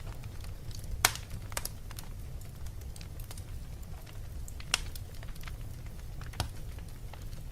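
Wood fire crackling in a fireplace: scattered small snaps over a low steady rumble, with three louder pops spread through.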